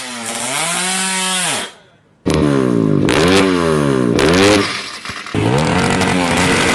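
Tuned drag-racing motorcycle engine revved hard in repeated blips, its pitch climbing and dropping again and again. The revving breaks off abruptly about two seconds in and restarts, with another abrupt change a little after five seconds.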